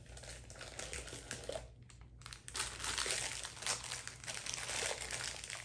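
Plastic packaging of a Funko Soda figure crinkling and rustling as it is handled and worked open, faint at first and louder from about halfway in.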